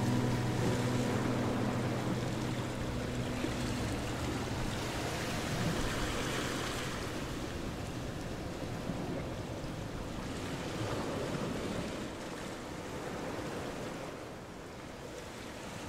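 Outdoor ambience: a steady rushing noise that swells and eases, under the tail of acoustic guitar music fading out in the first few seconds.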